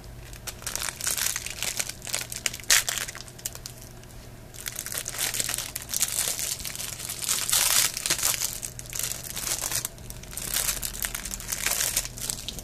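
Plastic wrapper of a Twinkie crinkling as it is handled and pulled open, in three long bouts of rustling with short quieter gaps between them.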